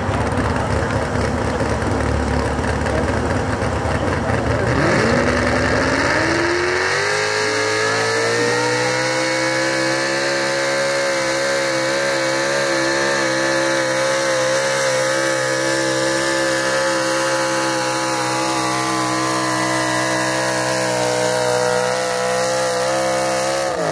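Ford pulling pickup's engine idling, then revving up over about two seconds and held at high, steady revs for some fifteen seconds under full load as it drags a weight-transfer sled. The revs drop sharply near the end as the throttle is let off.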